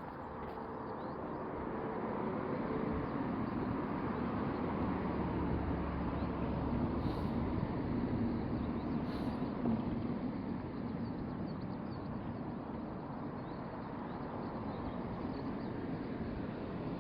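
Steady low rumbling noise with no clear tone, like a vehicle running or traffic, growing a little louder over the first couple of seconds.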